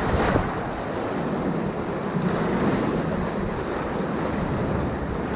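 Rushing whitewater of the Ocoee River heard from a kayak running the rapids, a steady roar of water with wind buffeting the microphone. A slightly louder splash comes right at the start.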